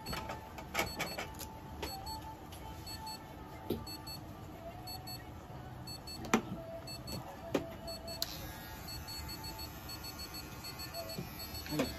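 Scissor-type pet nail clippers snipping a cat's claws: a series of sharp, separate clicks, the loudest about six seconds in, over faint steady electronic tones.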